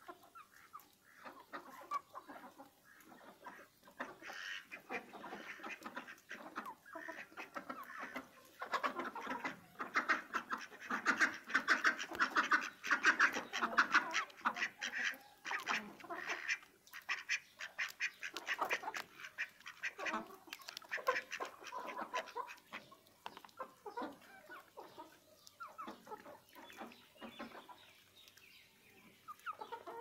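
A pen of domestic ducks and chickens calling together: a dense run of quacks and clucks that builds up, is loudest in the middle, and thins out toward the end.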